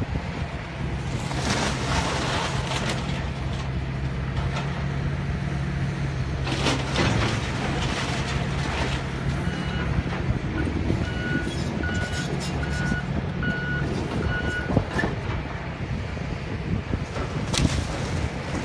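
Excavator's diesel engine running steadily while it demolishes a building, with debris crashing and crunching down several times. Midway a backup alarm beeps about five times at an even pace.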